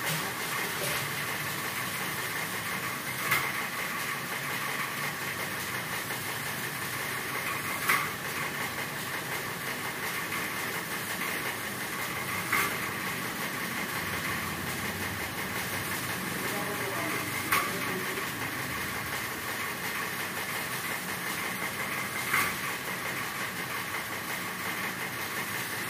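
A machine running steadily with a hiss, with a short sharp click about every five seconds, five clicks in all.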